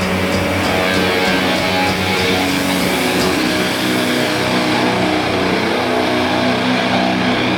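Doom metal band playing live: distorted electric guitars and bass holding low, sustained droning chords at a steady high volume.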